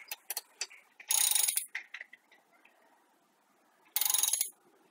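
Socket ratchet wrench clicking in two quick runs, about a second in and again near the end, as a bolt for the brake hose clamp is driven in.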